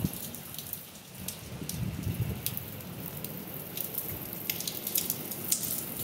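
Heavy rain falling steadily, with scattered single drops ticking sharply close by.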